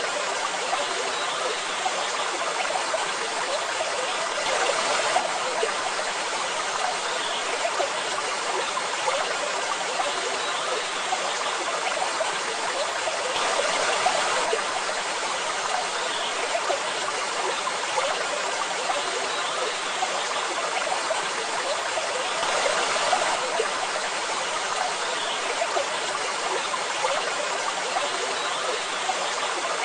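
Waterfall water rushing and splashing in a steady stream, swelling slightly louder every nine seconds or so.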